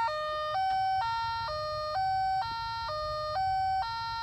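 2000 VW Cabrio's electronic warning chime sounding with the key turned to the on position: a three-note beep pattern repeating over and over, about two notes a second. A low steady hum runs underneath.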